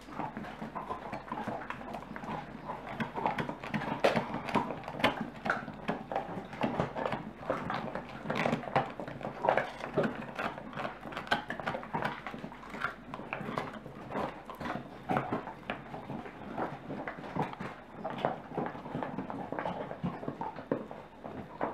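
Basset Artésien Normand dogs gnawing and crunching raw meaty bones: an irregular run of cracks and clicks of teeth on bone, several a second.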